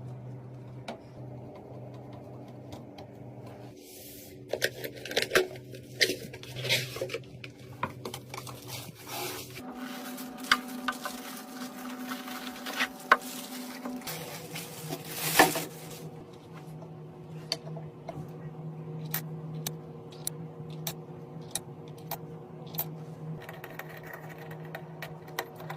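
Light clicks, taps and rattles of small hard computer parts being handled and fitted, over a steady hum that changes pitch twice.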